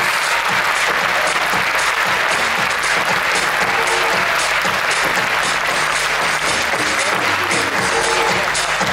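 Large theatre audience applauding steadily, with music playing underneath to a regular beat.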